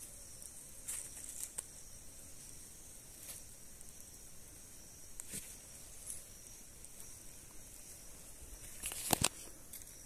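Small fire of dry leaves and twigs just catching, with a faint steady hiss and scattered sharp crackles. A louder crackle or snap of twigs comes about nine seconds in.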